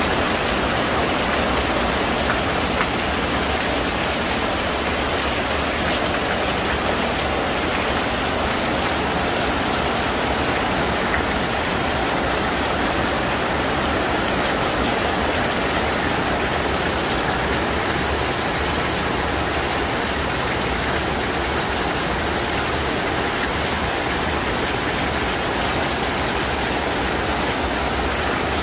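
Heavy rain falling steadily on a flooded paved courtyard, with streams of water pouring off the edge of an overhead roof.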